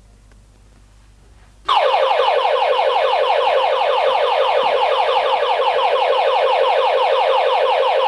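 Intruder alarm's built-in bell-box siren, with the add-on MasterBlaster siren switched off, sounding suddenly about two seconds in and carrying on as a loud, fast warble of quickly repeating pitch sweeps.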